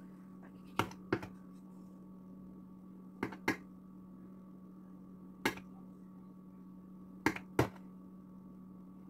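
Light sharp clicks and taps of a small spatula being handled as piped frosting rosettes are lifted off a cake, about seven in all and mostly in close pairs, over a steady low hum.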